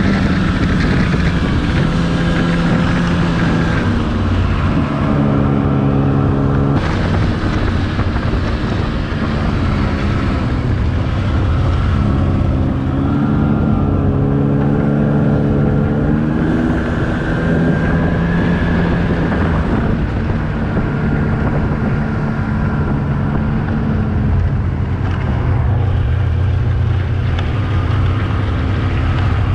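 Snowmobile engine running at speed, its pitch rising and falling slowly as the throttle changes.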